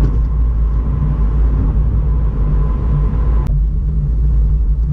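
In-cabin drive of a 2017 Subaru WRX: steady low engine and road rumble, with a steady whine that stops with a click about three and a half seconds in.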